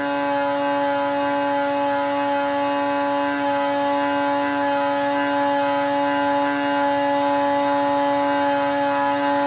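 Bikeman 900 big-bore two-stroke twin in an Arctic Cat Alpha-based snowmobile, held at wide-open throttle at steady peak RPM on a dyno during a long extended pull. A loud, steady high drone that holds one pitch throughout.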